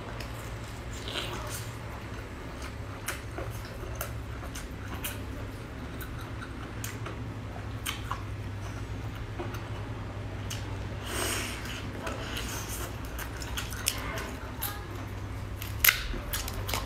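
Close-miked chewing and biting of soft, glazed food: wet mouth sounds and small scattered clicks over a steady low hum, with a few sharper clicks near the end as the piece is torn apart.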